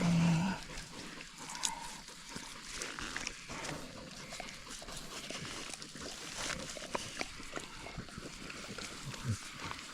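Hunting dogs and a caught wild boar scuffling in dry scrub, with a short low grunt right at the start and scattered rustles and snaps after it.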